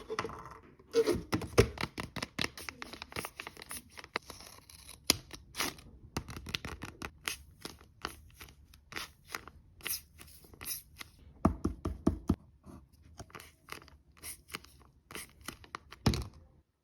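Scissors snipping through paper in many quick, irregular cuts, with paper rustling between them.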